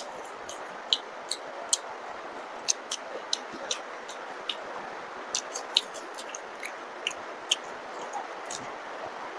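Close-miked mukbang eating of soft luchi with curry, onion and chilli: sharp, wet mouth clicks and smacks at irregular moments. Under them runs a steady hiss of heavy rain.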